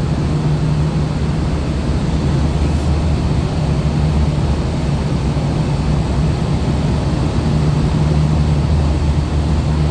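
Large commercial rooftop air-conditioning units running: a steady low hum with an even rush of noise over it.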